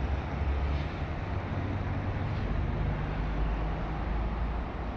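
Steady low rumble of road traffic with an even background hum of the city, with no single event standing out.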